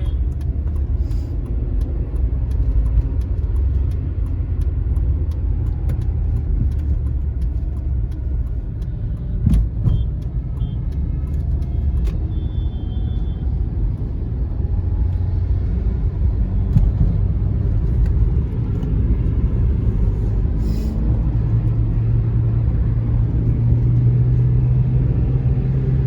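Car driving along, with a steady low rumble of engine and road noise heard from inside the cabin, a brief thump about nine seconds in, and a steadier low engine note near the end.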